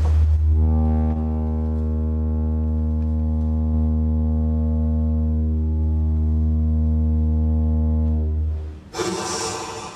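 A loud, steady low drone with a stack of overtones, holding one pitch for almost nine seconds and then cutting off. A short burst of hissing noise follows near the end.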